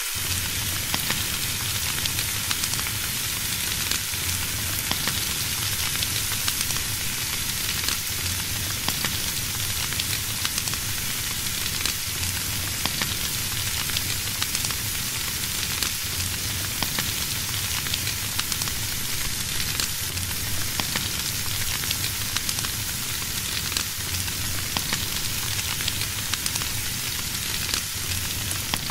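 Bacon sizzling in a frying pan: a steady hiss dotted with many small pops.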